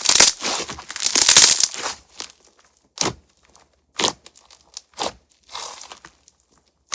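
Crunch-texture slime being squeezed and pressed by hand, crackling and popping: a dense crackling for about two seconds, then four short separate crunches with pauses between.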